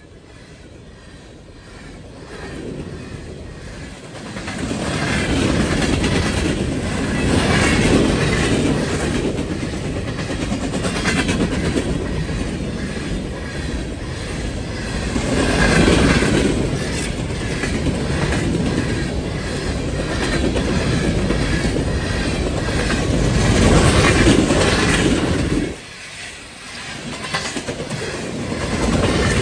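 Freight train of coal gondola cars rolling past, steel wheels clacking over rail joints in a continuous rumble that swells and eases as the cars go by. It starts quieter and grows louder about four seconds in, with a brief lull near the end.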